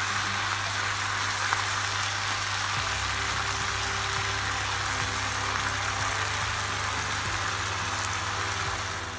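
Pea leaves and spice paste frying in a non-stick pan, giving a steady, even sizzle like rain on a surface.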